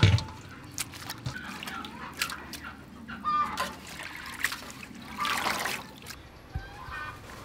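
Water sloshing and splashing in a metal basin as lettuce leaves are rinsed and rubbed by hand, with a louder stretch of splashing about five seconds in.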